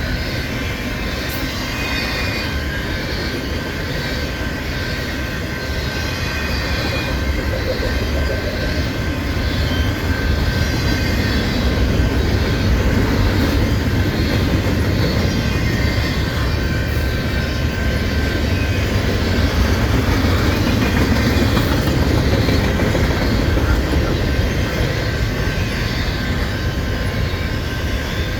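Freight train of container-laden well cars rolling past, a steady heavy rumble of steel wheels on rail with rhythmic clacking and a thin steady wheel squeal. It grows a little louder after the first several seconds.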